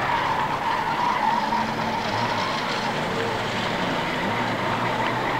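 Superbanger race cars' engines running as a pack laps an oval track, a steady blend of several engines with individual engine notes rising and falling as cars pass.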